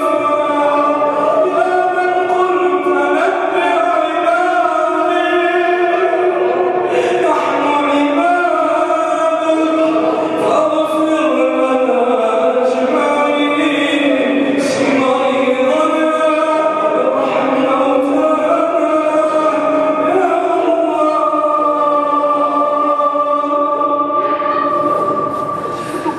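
Male voices chanting an Arabic supplication (du'a) melodically, in long held notes that slide from pitch to pitch.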